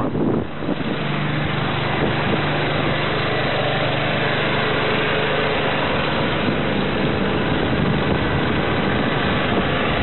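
Water rushing past the hull of a sailing yacht under way, with wind on the microphone and a steady low hum.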